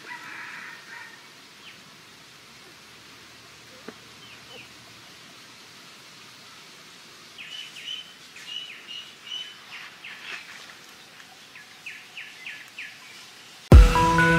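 Young puppies whimpering and squeaking in a series of short, high-pitched cries over faint outdoor ambience. Loud music starts suddenly near the end.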